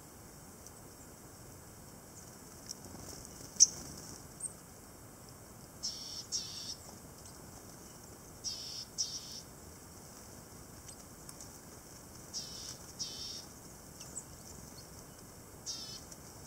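Tits calling in short, high, thin notes, mostly in pairs, four times in all, with a single sharp click a few seconds in.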